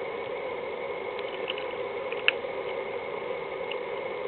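Steady background hiss and hum, with a few faint small clicks and one sharper click about two seconds in, from the small parts of an ignition key barrel being handled and fitted.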